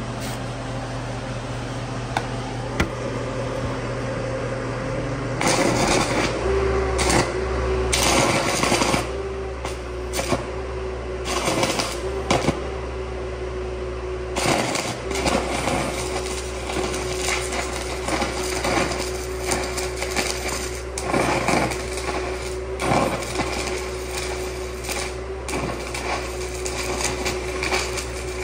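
An engine-driven 800-amp welder running steadily, then about five seconds in a stick-welding arc from a bundle of 24 eighth-inch 7018 rods at 800 amps strikes. The arc crackles and sputters unevenly over the engine's steady hum under load.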